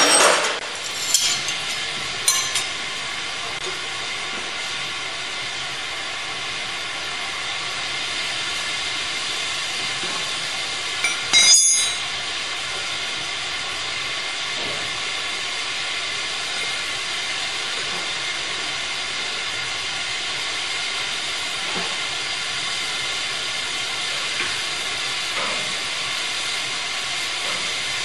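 Oxy-fuel gas torch flame hissing steadily while heating a steel threaded rod. A few short metal clanks come in the first couple of seconds and again about 11 seconds in.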